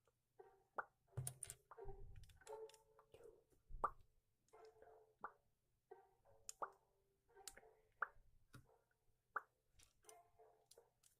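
Small plastic building bricks being handled and pressed together: faint sharp clicks about once a second, with soft rustling between them.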